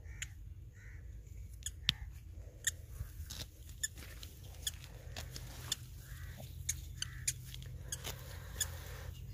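Green garlic stalks being picked by hand: irregular crisp snaps among rustling leaves, over a steady low rumble.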